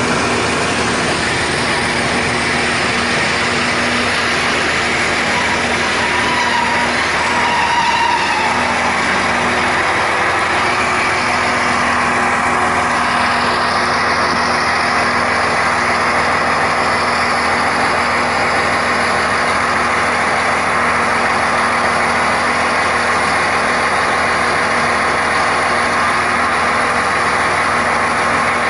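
Diesel railcar's engine running steadily with an even hum, heard from the cab, with a brief higher-pitched tone about seven seconds in.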